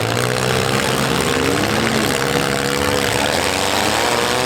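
Engines of several compact demolition-derby cars running and revving at once, their pitches rising and falling independently.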